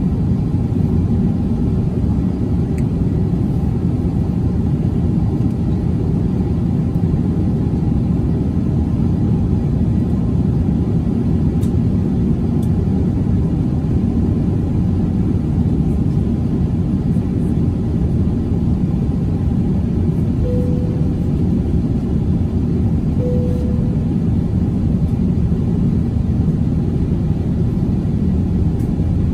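Steady airliner cabin noise inside an Airbus A350-900 in flight: the even roar of airflow and its Rolls-Royce Trent XWB engines, heaviest in the low range. Two brief tones, about three seconds apart, sound over it about twenty seconds in.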